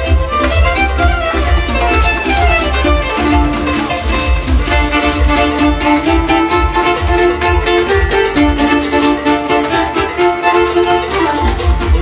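Live amplified band music: a violin plays the melody over a steady beat with heavy bass.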